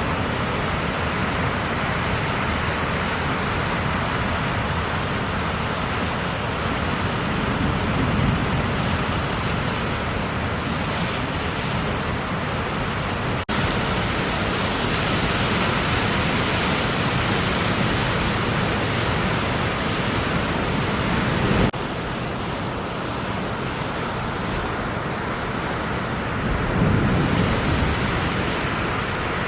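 Ocean surf and wind noise: a steady, loud rush of breaking waves that swells louder a couple of times and shifts abruptly twice.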